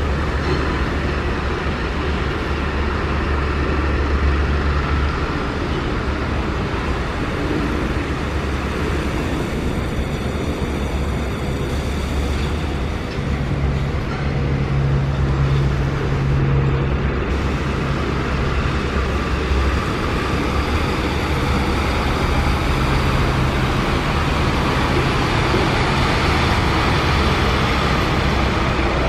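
MAN Lion's City A22 Euro 6 city bus's diesel engine running as the bus drives slowly and moves off: a steady low drone, with a stronger engine note about halfway through.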